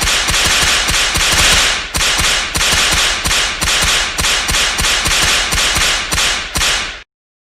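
Whip-crack sound effect played over and over, loud cracks following one another about two or three a second, each trailing off as the next comes in. The run stops abruptly near the end.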